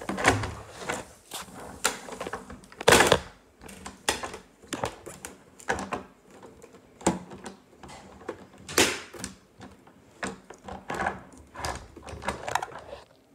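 Irregular clicks, taps and knocks of small objects being handled, with two louder, slightly longer knocks about three and nine seconds in.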